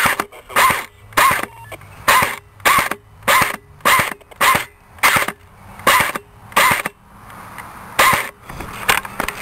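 ICS M4 airsoft electric gun (AEG) firing single shots in semi-automatic, about a dozen short whirring snaps a little over half a second apart, with a short pause near the end.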